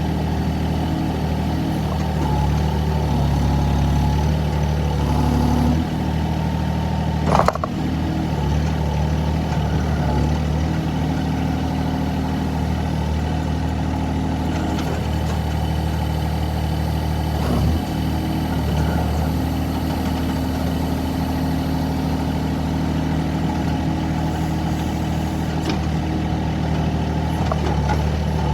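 Excavator's diesel engine running steadily, swelling slightly for a couple of seconds, with a sharp clank about seven seconds in and a lighter knock near eighteen seconds.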